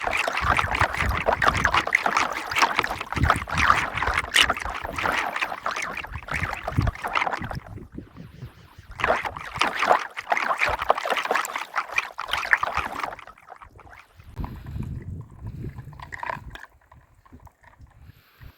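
Handheld water-ring toy being pumped: rapid squirting and churning of water inside the plastic case with fast clicks, in two long spells broken by a short pause about eight seconds in, then quieter near the end.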